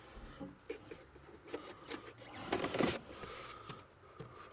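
Hands handling parts around a car battery: light clicks and rustling, with a louder scrape or rustle about two and a half seconds in.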